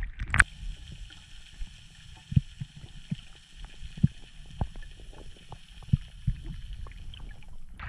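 Muffled underwater sound picked up by a submerged camera: a steady faint hiss with irregular low knocks and pops scattered throughout.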